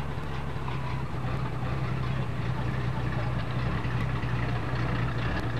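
Car engine running with a deep, steady exhaust rumble that slowly grows a little louder, a sound likened to a tornado.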